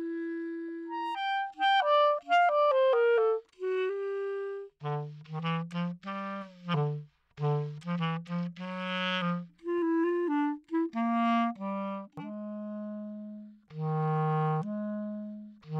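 The film's music score: a single melody instrument playing short detached notes. It makes a quick falling run about two seconds in, then moves to lower notes from about five seconds in.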